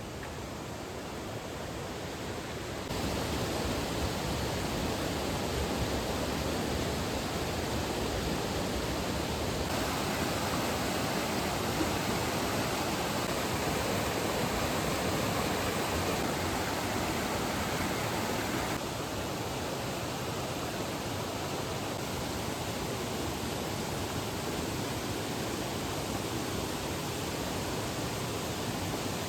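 Mountain stream rushing steadily over rocks. It gets louder about three seconds in and drops back somewhat past the middle.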